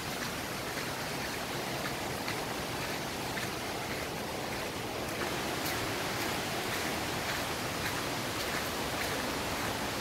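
Footsteps crunching on dry leaves on a dirt forest trail, short crisp steps about once a second, over a steady hiss of background noise.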